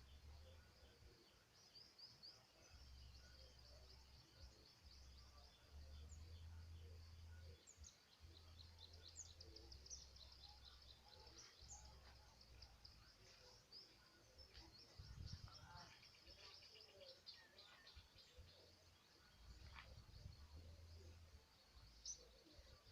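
Faint outdoor ambience: many small bird chirps, with an uneven low rumble underneath.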